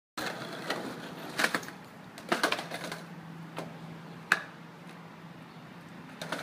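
Skateboard on concrete: a run of sharp clacks as the deck and wheels strike the pavement and a step ledge, about five in all, the sharpest about four seconds in, over a faint low steady hum.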